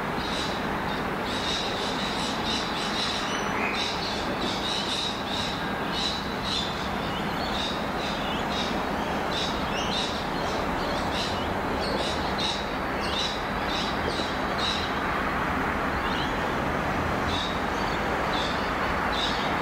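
Birds chirping and squawking in short repeated calls, about two a second, with a brief pause about three-quarters through. Under them is the steady running of an approaching diesel ballast train led by an 81 class diesel-electric locomotive, growing slightly louder towards the end.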